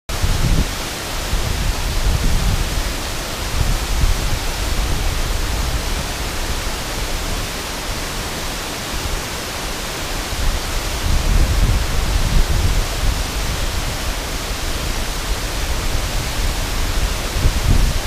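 Steady rushing of a wide waterfall pouring over a low dam onto rocks. Low rumbling gusts of wind on the microphone come and go, near the start, about two-thirds of the way through and near the end.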